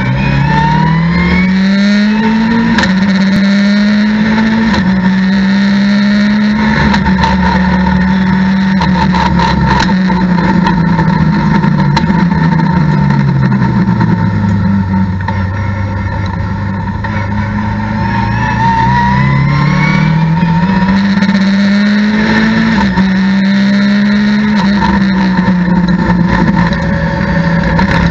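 A Mitjet race car's engine heard from inside the cockpit. It revs up and shifts up about three seconds in, holds its revs, then winds down slowly to a low steady note through a slow section. It pulls up again and shifts up once more near the end, with occasional knocks and rattles from the cabin.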